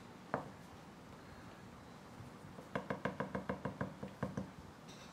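Steel serving plate tapped to shake biryani off onto a banana leaf: one light knock about a third of a second in, then a quick run of about a dozen light knocks, roughly seven a second, over a second and a half.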